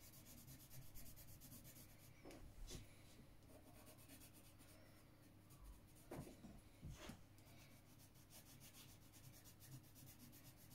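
Faint pencil strokes rubbing on paper as an area is shaded in, with a few soft knocks in the middle.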